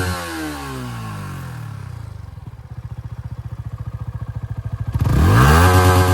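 Yamaha R15 V3's 155 cc single-cylinder engine revved through its exhaust. It is held at high revs, then let fall back over a couple of seconds to a pulsing idle. About five seconds in it is revved sharply up again and held.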